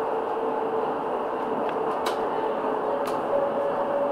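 R2.2 low-floor tram running along its track: a steady rolling noise with a held whine, and two sharp clicks about a second apart near the middle.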